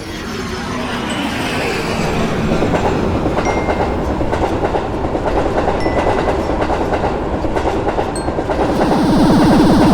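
Train running past on the rails: a dense rumble and clatter of wheels on track that grows louder. About nine seconds in it turns into a heavier, rapidly pulsing rumble.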